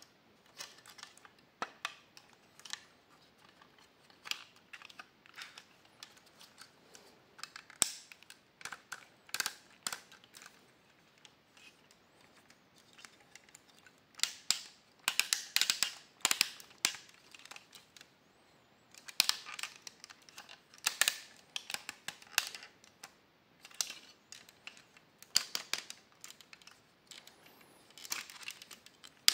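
Hard plastic clicks and clacks of a Spider-Man transforming robot toy as its jointed limbs and panels are snapped and folded into place by hand. The clicks come irregularly, in short clusters of several quick clicks.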